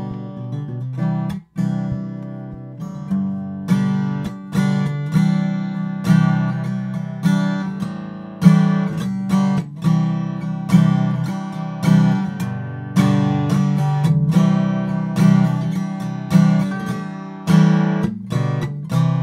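Acoustic guitar strumming chords in a steady rhythm, with a brief break about a second and a half in. It is a studio recording made through a condenser microphone under comparison.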